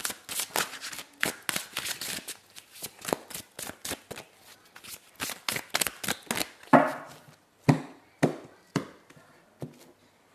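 Tarot cards being shuffled: a quick, dense run of papery clicks for about six seconds, then a handful of separate, louder card slaps spaced about half a second to a second apart.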